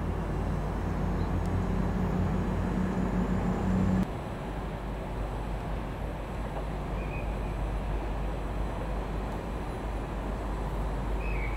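Diesel locomotive engine idling with a steady low hum. About four seconds in, it drops abruptly to a quieter steady rumble of idling diesel locomotives, with a couple of faint high chirps.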